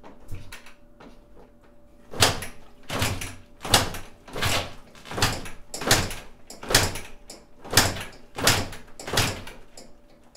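A 2001 Kawasaki KX250 two-stroke single being kick-started about ten times in quick succession, roughly one kick every three quarters of a second, each a short loud burst as the engine turns over. It does not fire.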